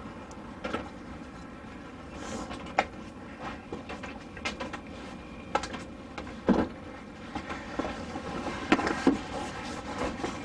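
Scattered knocks, clicks and clatter of things being handled and moved about, with louder knocks about two-thirds of the way in and near the end.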